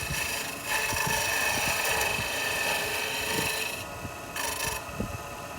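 Wen benchtop wood lathe running with a steady motor whine while a turning chisel scrapes the spinning wood, carving a flat spot. After about four seconds the scraping drops away and comes back briefly as the tool leaves and touches the wood, while the motor keeps running.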